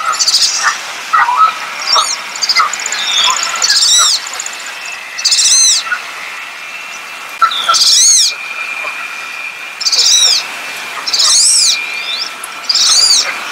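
Wood duck calling: a series of about nine high, thin whistled calls, each rising then falling in pitch, one every second or two. A faint steady high tone runs underneath in the second half.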